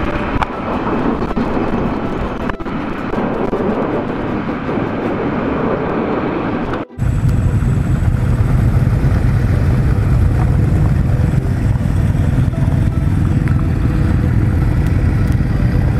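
Motorcycle engines running as a group rides slowly on a gravel road, heard from a helmet-mounted camera. A sudden cut about seven seconds in switches to a steadier, deeper engine rumble.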